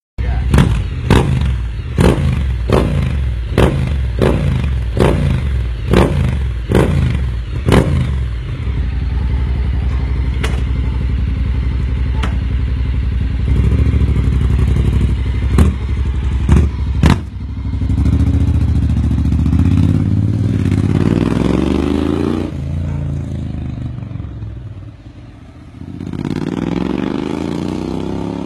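Honda X-ADV's 745 cc parallel-twin engine through a Termignoni full exhaust. For the first eight seconds it gives a run of sharp cracks about twice a second. It then runs steadily with a few more cracks, and near the end rises twice in pitch as it revs up under acceleration.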